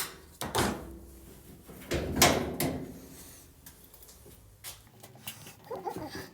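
Scattered knocks and clunks from the sheet-metal cabinet of a Whirlpool commercial dryer being handled and taken apart. The two loudest come about half a second and two seconds in, with lighter taps later.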